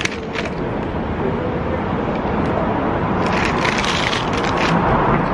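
A paper bakery bag crinkling as it is handled, most in a burst about three to four and a half seconds in, over steady street traffic noise.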